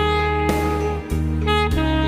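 Instrumental background music with a saxophone-like lead over a steady bass line.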